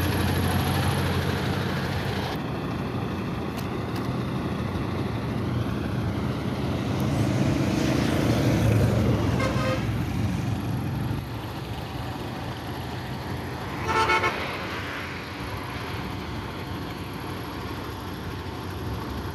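Heavy truck's diesel engine running close by, with road traffic, its low hum easing after about 11 seconds. A short vehicle horn toot sounds about 14 seconds in, with a fainter one a few seconds earlier.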